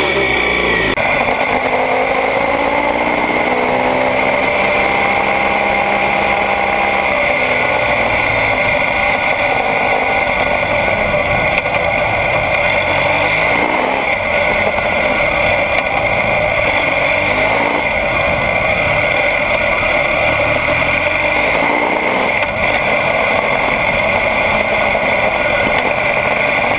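BMW GS motorcycle engine running while being ridden, heard from a camera mounted on the bike, its pitch rising and falling several times as the rider changes speed over steady road noise.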